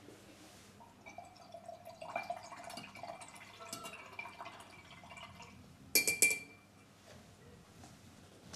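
A thin rod stirring muddy water in a glass jar, ticking and clinking against the glass so that the jar rings faintly. About six seconds in come two sharp, louder clinks of the rod against the jar.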